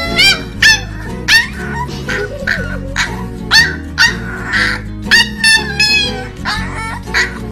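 Corgi puppy giving a rapid string of short, high-pitched yips, each dropping in pitch, over background music.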